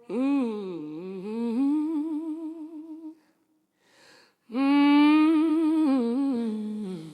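A woman's voice humming a wordless blues intro, unaccompanied, in two long phrases with wide vibrato and a second's silence between them about three seconds in.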